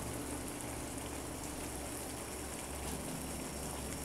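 Fish korma sauce simmering in a frying pan, a steady bubbling sizzle.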